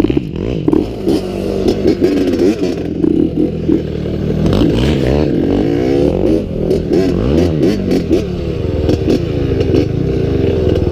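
Honda CR80 single-cylinder two-stroke motocross bike engine revving up and down repeatedly while being ridden, its pitch rising and falling with each burst of throttle and gear change.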